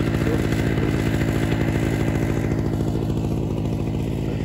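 Small portable generator's engine running steadily at a constant speed, with a fast, even pulse. It sounds a little duller from about halfway through.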